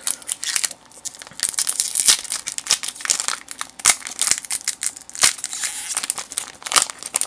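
Foil wrapper of a Japanese Pokémon card booster pack being torn open by hand, crinkling and crackling irregularly; the crackling gets denser after about a second and a half.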